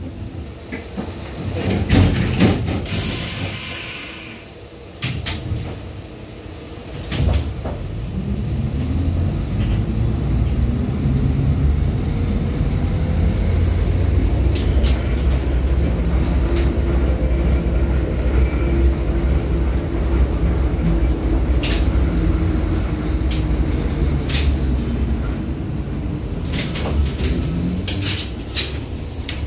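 Inside an LVS-97K articulated tram: a hiss and sharp clicks while it stands at the stop. About seven seconds in, its traction motors start with a rising whine as it pulls away, then run on with a steady low rumble and occasional clicks and rattles from the car.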